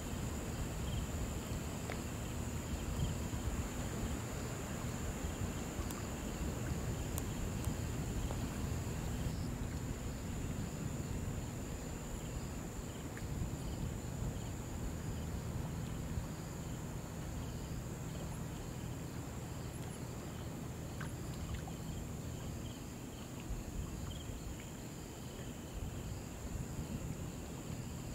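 Steady flow of a shallow river, a continuous low rush of water, with a high-pitched insect drone held unbroken over it.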